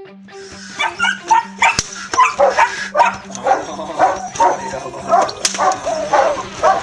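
German shepherd puppy barking in a quick run of short, high barks, about three a second, while tugging at a rag.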